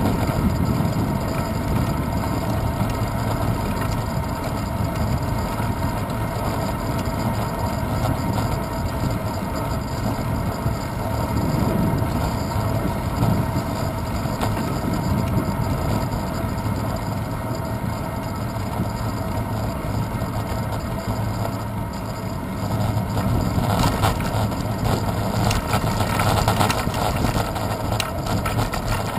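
Steady low road rumble and wind noise from a bicycle rolling along a city street, picked up through a handlebar-mounted action camera. Near the end a run of fine rattling clicks joins in as the bike rolls over rougher, cracked asphalt.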